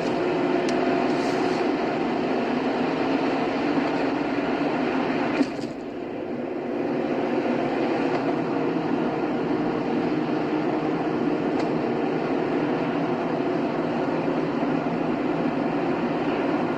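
Car driving on a highway: steady road and engine noise, with a short click and a brief drop in the noise about five and a half seconds in.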